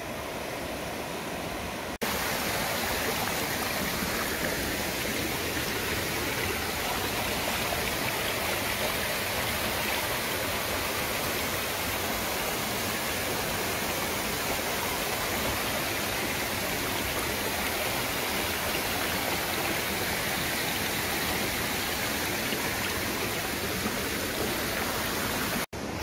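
Mountain stream rushing steadily as a small cascade pours between granite boulders, louder from about two seconds in.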